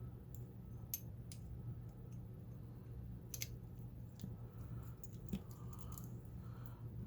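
Faint, irregular light metal clicks and scrapes of lock-picking tools working in a bound-up pin-tumbler lock cylinder, which the picker suspects has a spring pushed out of place. A steady low hum runs underneath.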